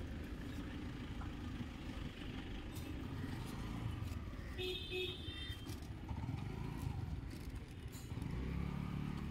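Outdoor road-traffic ambience: a steady low rumble of passing vehicles, with a short double beep about halfway through.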